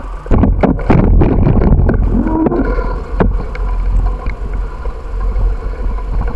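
Wind buffeting the microphone of a moving bicycle, over a steady low road rumble. A run of sharp rattling knocks comes in the first two seconds, and one more about three seconds in, as the bike rolls over the rough pavement.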